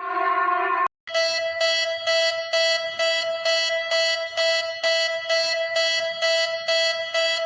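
Electronic emergency-alert alarm tones. A steady multi-tone alarm cuts off just under a second in. After a short gap, a buzzy alarm tone pulses at a steady pitch a little over twice a second, with a brief break near the end.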